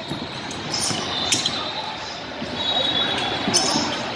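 Indoor basketball game sounds in a big, echoing hall: sneakers squeaking on the hardwood court and a few sharp knocks, over a steady murmur of voices.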